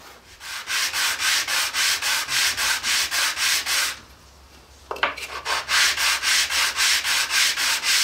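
Wooden clamp arm rubbed back and forth by hand on sandpaper mounted to a flat MDF board, truing its edges square: quick rasping strokes, about four or five a second. The strokes stop for about a second midway while the piece is lifted, then start again.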